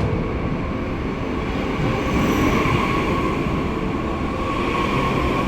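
Passenger train running along the track, heard from on board: a steady rumble and rush of wheels on rails, with a faint whine held under it.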